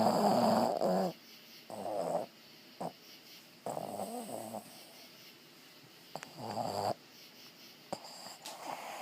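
Boston terrier snoring in its sleep: a run of short snores about one every second or two, the last one fainter.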